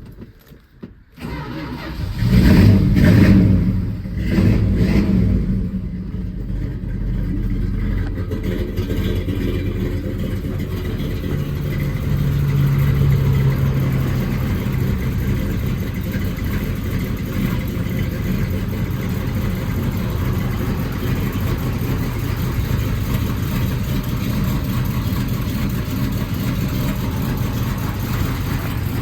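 1979 Dodge Lil Red Express's 360 V8 cold-starting. About two seconds in it catches with a loud burst and is revved twice, then settles into a steady idle, with a brief rise in engine speed around the middle.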